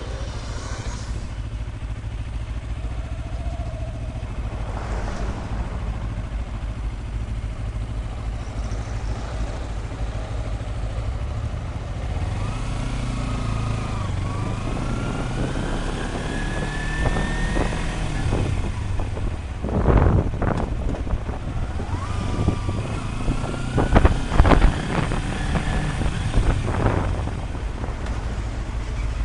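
Motorcycle engine running at low speed in traffic, with wind on the microphone. Its pitch rises and falls as the bike pulls away partway through. A few loud thumps come near the end.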